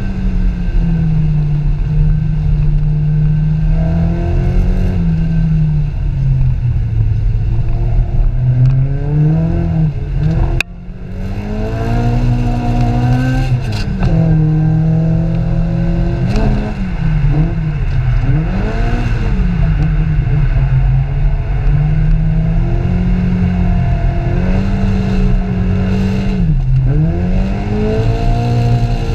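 Car engine heard from inside the cabin, its pitch repeatedly rising and falling as the car accelerates and eases off. About ten and a half seconds in there is a sharp click, and the engine sound briefly drops away before picking up again.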